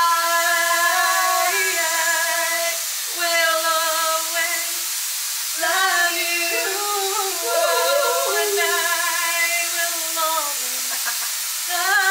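A woman singing long held notes, with short breaks for breath, over the steady hiss of a Dyson Airwrap hair styler blowing air.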